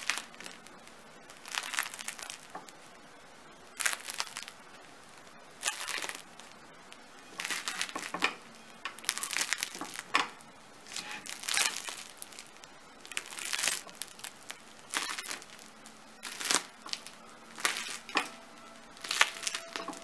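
Crisp crust of a freshly baked round yeast loaf crackling as fingertips press into it, in about a dozen short crunchy bursts every second or two. The crackle is the sign of a crisp, well-baked crust.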